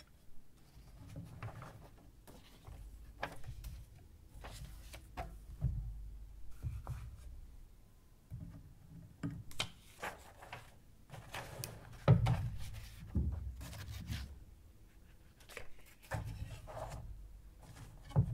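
Papers and photographs handled in a cardboard box: irregular rustling and sliding with light knocks, and one louder knock about two-thirds of the way through.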